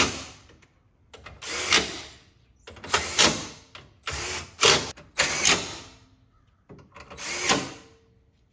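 Handheld power drill/driver running in five short bursts, each about half a second to a second long, driving screws.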